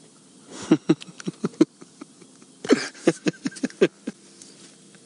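A man's voice in short, quick bursts, in two runs: one about a second in and one about three seconds in.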